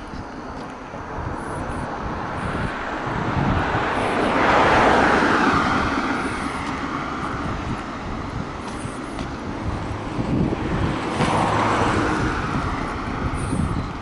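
Cars passing on the road alongside, one after another: tyre and engine noise swells and fades twice, loudest about five seconds in and again around eleven seconds in.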